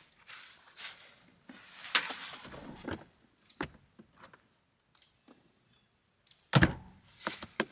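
Gear being handled in a pickup truck bed: scattered rustling and clattering, then one heavy thump about six and a half seconds in, followed by a few light knocks.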